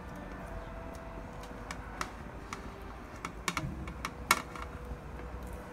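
A silicone spatula scrapes cubed cooked chicken off a plate into a saucepan of cream sauce, making scattered light taps and clicks. The loudest click comes about four seconds in.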